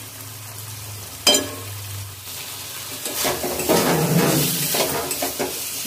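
Roasted potatoes going into a metal kadai of frying masala: a sharp metallic clink about a second in, then from about three seconds a metal spatula scraping and stirring them through the sizzling masala.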